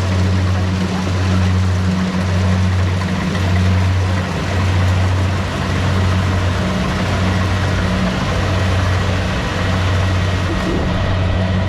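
Tracked rice combine harvester running: a steady engine drone with a low hum that pulses about once a second, over a wash of machine noise.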